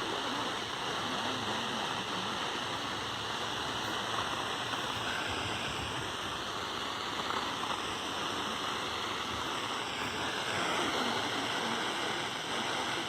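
Steady hiss of radio static from a weak broadcast signal, with the voice reading the severe thunderstorm warning nearly drowned out beneath it.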